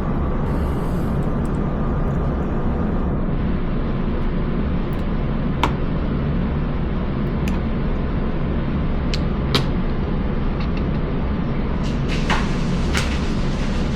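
Steady low rumbling hum of a running household furnace, with a few small sharp clicks scattered through it as small parts and tools are handled on a desk.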